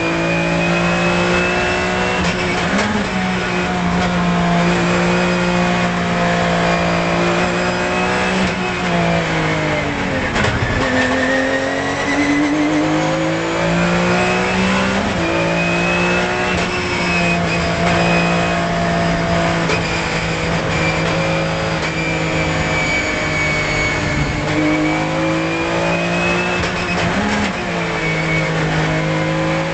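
Porsche 997 GT3 Cup's flat-six heard from inside the race car at high revs, the engine note rising and falling with the throttle. About ten seconds in the revs drop sharply and sweep back up through braking and a downshift from fourth to third gear.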